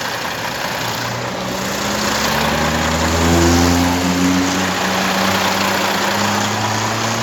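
Truck diesel engine running, a low steady engine hum that strengthens about a second in and is loudest around the middle.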